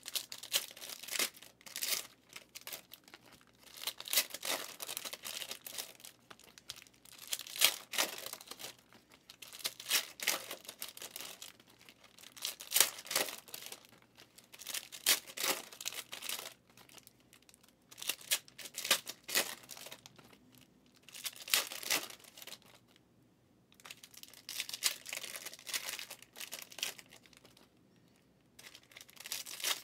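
Stiff trading cards being riffled and slid across one another by hand, in short crisp rustling bursts about every two to three seconds.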